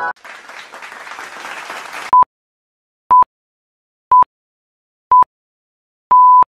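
About two seconds of applause-like noise, then a countdown timer's electronic beeps: four short beeps a second apart, all on one pitch, and a longer beep near the end.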